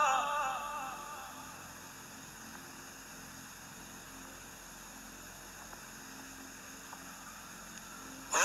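A Quran reciter's sung phrase dying away with an echoing tail over about the first second, then a long pause with only a faint steady hiss. The chanting voice starts again at the very end.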